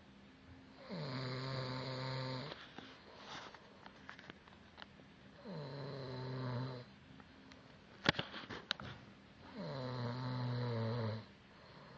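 A man snoring in his sleep: three long snores about four seconds apart, each dropping in pitch at the start and then holding a low steady buzzing tone. A quick cluster of sharp clicks falls between the second and third snore.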